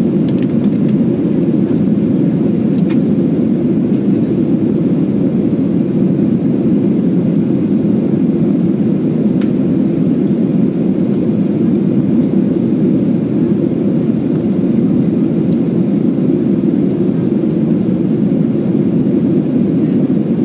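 Steady cabin noise inside a Boeing 737-800 climbing after takeoff, heard from a window seat beside the wing: the deep, even sound of its CFM56-7B turbofans at climb thrust mixed with airflow over the fuselage.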